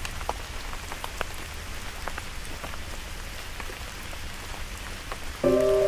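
Steady rain falling on puddles and wet ground, an even patter with scattered distinct drop taps. Near the end, music with sustained notes comes in, louder than the rain.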